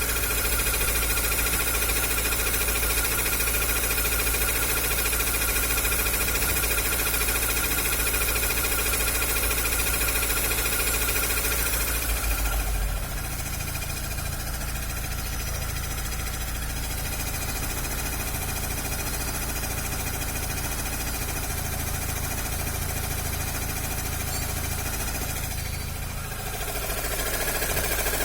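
Chevrolet Corsa hatchback engine running steadily with an abnormal noise from the front of the engine, which the owner suspects is the water pump, the belt tensioner bearing or an accessory bearing. About twelve seconds in the sound drops a little and its tone changes, coming back near the end.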